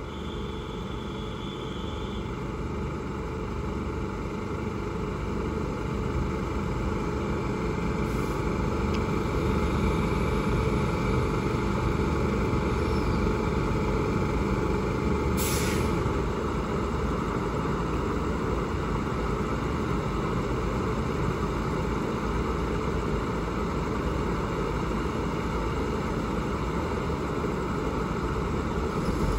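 Diesel railcar set of a special express train idling at the platform, a steady engine rumble that grows a little louder over the first ten seconds, with a brief hiss of air about halfway through.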